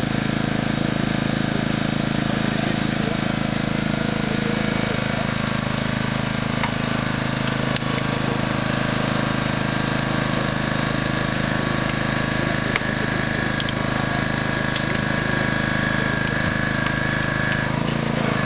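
Engine-driven hydraulic power unit for rescue tools running steadily, feeding a hydraulic tool that is working on a car body. About halfway a high steady whine joins and cuts off near the end. A couple of sharp cracks are heard along the way.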